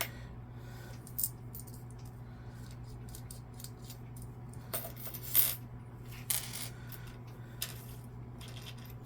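Small metal tools from a precision screwdriver kit clinking and clicking as they are handled and set down: a few separate light clicks, the loudest about five and a half seconds in.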